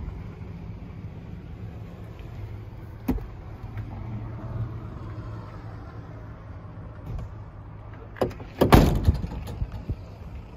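Passenger door of an Isuzu ELF truck cab swung shut with one loud bang near the end, a smaller knock just before it, over a steady low rumble.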